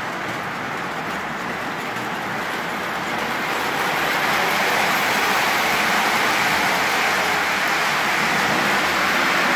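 Lionel O-gauge model trains running on the layout's track: a steady rumble of wheels and motors that swells about four seconds in as a Pennsylvania GG1 electric locomotive and its passenger cars pass close by.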